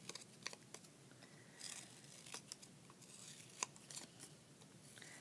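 Scissors cutting a circle out of coloured construction paper: faint, irregular short snips with soft paper rustles.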